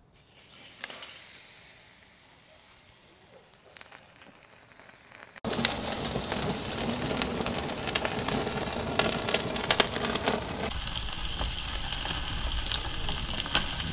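Tomahawk ribeye steak sizzling and crackling directly on hot lump charcoal, with the coals flaring up into open flame around it. Faint at first, then about five seconds in it turns suddenly much louder, a dense run of crackles and sharp pops.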